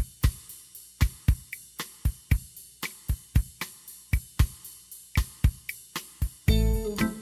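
Background music: a drum break of sharp percussion hits, about four a second, before the full arrangement comes back in near the end.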